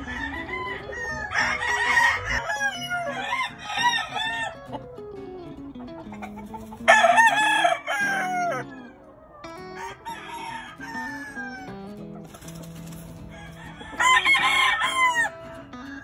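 Roosters crowing repeatedly, four crows in all, the loudest about seven seconds in and another near the end.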